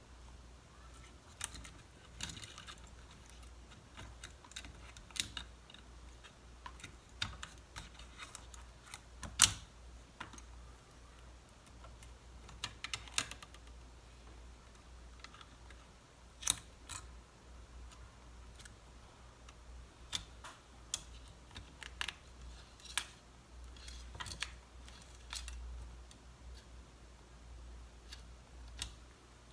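Irregular sharp clicks and small taps of tools and small laptop parts being handled and fitted while a MacBook Pro is put back together, one louder click about nine seconds in.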